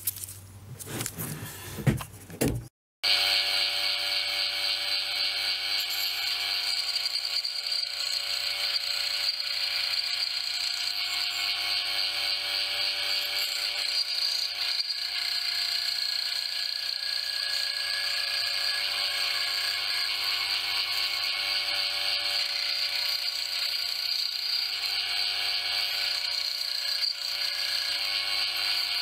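A band saw runs steadily while cutting a small wooden carving blank, a pattern-covered block taped together with clear tape. For the first few seconds, before the saw is heard, there are light knocks from the block being handled.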